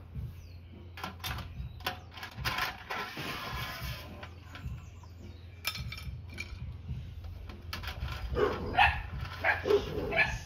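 Metal utensils clinking and scraping against a stock pot as steamed clams are lifted out onto a plate, in scattered knocks. A dog barks a few times about eight seconds in, louder than the clinking.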